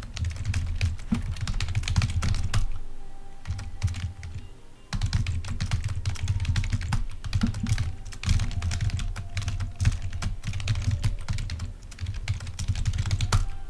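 Rapid typing on a computer keyboard, in two long runs of dense key clicks with a pause of a second or two between them, stopping just before the end.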